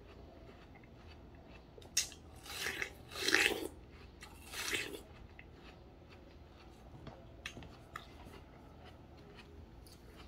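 Biting into and chewing watermelon: a sharp click about two seconds in, then three short crunchy bites over the next three seconds, the middle one loudest, followed by quieter chewing with a couple of small clicks.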